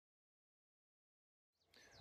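Near silence: the sound track is blank, with faint background noise fading in just before the end.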